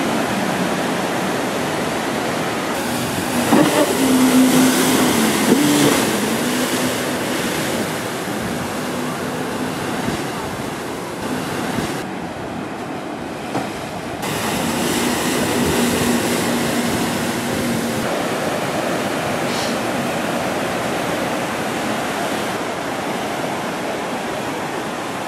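Rescue jet ski's engine running and changing revs as it tows a rescue sled through breaking surf, over the steady wash of waves. The engine comes up loudest about four to six seconds in and again around fifteen seconds in.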